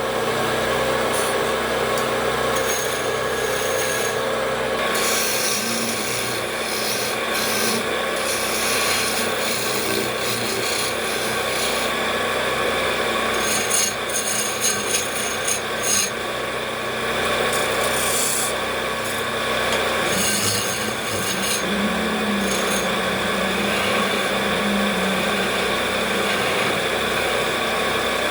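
Wood lathe running while a turning tool cuts the spinning wood: a steady rasping scrape over the machine's hum, with a few louder, irregular bumps about halfway through.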